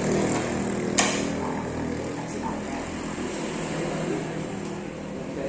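Carom billiard balls clicking together once, sharply, about a second in, over a steady low background hum.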